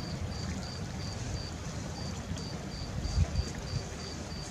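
Outdoor night ambience: a steady low rumble with a faint high chirp repeating evenly, about three times a second.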